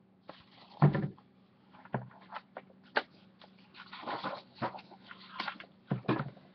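Handling noise from a picture book being moved and its page turned: paper rustling broken by several sharp knocks and clicks, over a faint steady hum.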